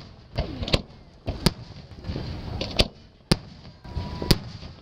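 Aerial firework shells bursting overhead: five sharp bangs at uneven intervals, each followed by a short rumble.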